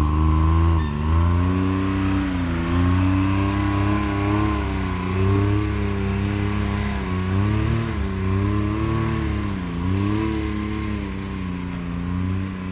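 Side-by-side UTV engine working up a climb, its pitch rising and falling again and again as the throttle is fed in and eased off.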